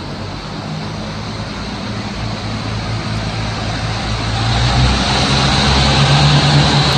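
Diesel railcar engine sound for a Kiha 85, played through a model layout's sound system as the train sets off: a low running engine note that throttles up and grows louder about four and a half seconds in.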